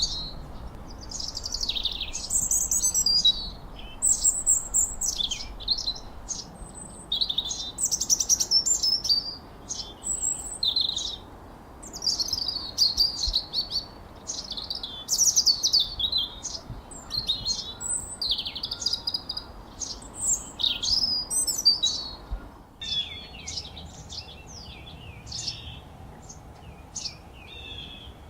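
Several birds chirping and whistling in quick, overlapping high-pitched phrases over a faint steady background hiss. About three quarters of the way through, the song turns sparser and quieter.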